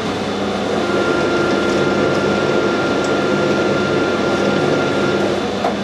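Metal lathe running forward under power feed while a single-point tool takes a pass cutting a coarse 4 TPI screw thread. The run is a steady mechanical noise with a steady high whine, and it ends with a click near the end.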